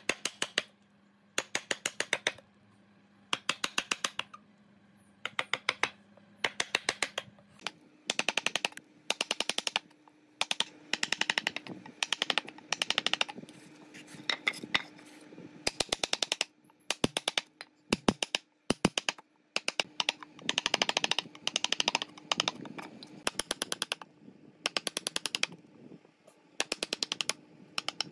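Steel chisel chopping into a softwood timber, with quick volleys of sharp taps. Each volley holds about ten taps, and the volleys come roughly once a second.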